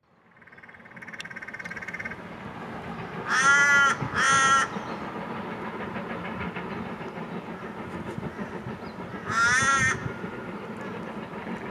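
A crow calls three times, long harsh caws: two close together a few seconds in and another near the end. They sound over a steady low background rumble.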